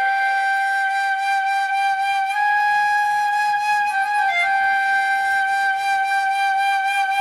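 Flute ringtone tune: one long held note, slipping briefly to a lower note about four seconds in and then held again.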